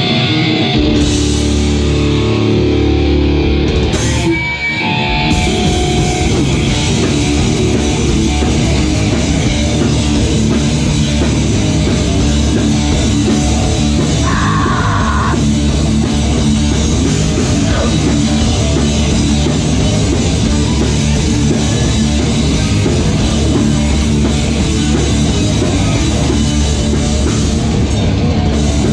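Metalcore band playing live and loud: distorted electric guitars, bass guitar and drum kit. A guitar riff leads for the first few seconds, there is a short break about four seconds in, then the full band plays on densely.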